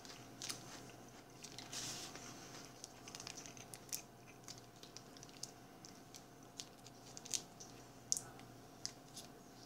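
Small plastic condiment packet being torn open and worked by hand: faint crinkling and tearing, with scattered small clicks and rustles.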